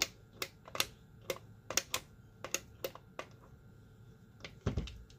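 A run of about a dozen sharp, irregular clicks and taps over about three seconds, like small hard objects or plastic packaging being handled, then a dull low thump near the end.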